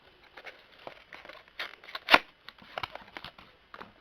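A cardboard phone box being opened by hand: scattered rustling and scraping of the packaging, with one sharp snap about two seconds in.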